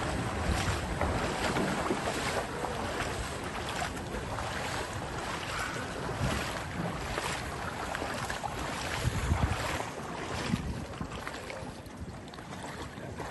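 Floodwater splashing and sloshing around rescuers wading with an inflatable raft, in irregular splashes over a steady wash of water, with some wind noise on the microphone.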